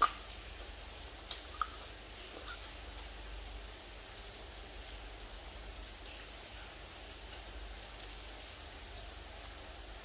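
Eating by hand: a sharp click at the start, then a few small clicks and smacks as pickled shrimp and crab are peeled and eaten, over a steady hiss of rain.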